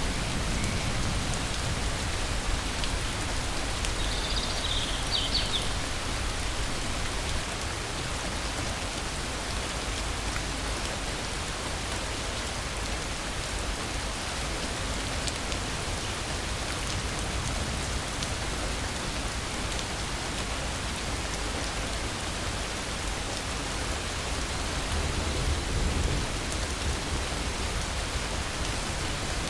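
Steady rain falling in a forest, an even hiss over a low rumble that swells near the end. A few short, faint high chirps come about four to five seconds in.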